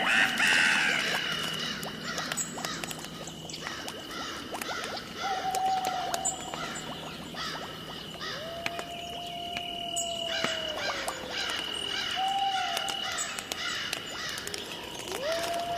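Halloween night-ambience sound effect: a steady high chirping chorus, with several short calls and two long howls that rise and then fall slowly, about halfway through and near the end.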